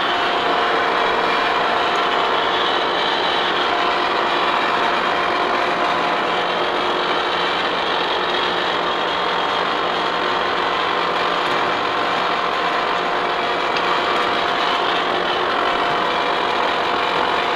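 Lucas horizontal boring mill running steadily with its face mill spinning: a dense, even gear-driven whir with a few steady tones through it.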